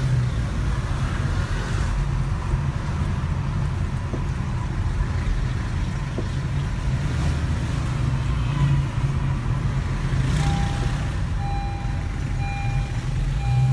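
Low steady rumble of a car's engine and tyres heard from inside the cabin while driving slowly. About ten seconds in, a short electronic beep starts repeating, roughly one and a half times a second.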